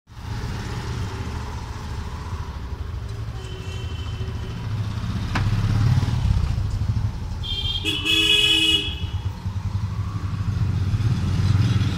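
Street traffic: motor vehicle engines running as a steady low rumble, with a faint horn toot about three and a half seconds in and a louder horn honk lasting about a second around eight seconds in.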